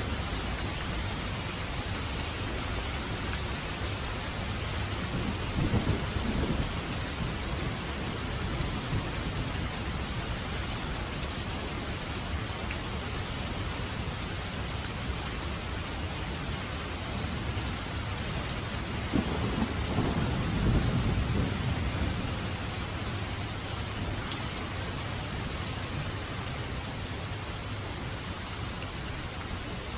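Steady rain falling, with two low rumbles of thunder rolling in, one about six seconds in and a longer one about twenty seconds in.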